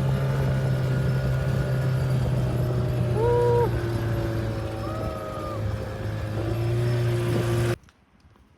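Steady low machinery hum inside a tourist submarine's cabin, with a few short pitched tones over it; it cuts off suddenly near the end.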